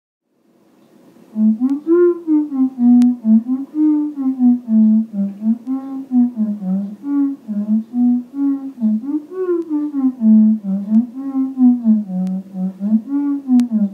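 Theremin playing a slow melody line. It fades in about a second in and glides smoothly between notes, with the pitch sliding up and down rather than stepping.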